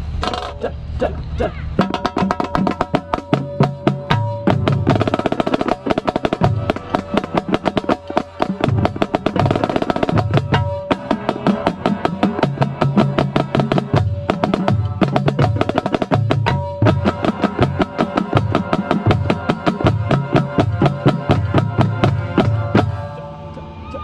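Marching snare drum played right at the microphone, fast sharp stick strokes and rolls on its Evans head, which thicken about two seconds in. Under it the marching band's held horn chords and low drum notes.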